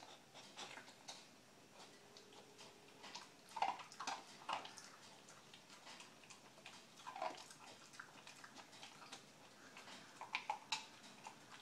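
Dog crunching and chewing dry kibble off a tile floor: irregular crunches, with louder clusters about three to four and a half seconds in, around seven seconds, and near the end.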